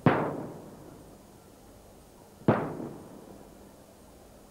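Traditional Maltese aerial firework shells bursting in the sky: two loud bangs about two and a half seconds apart, each echoing away over about a second.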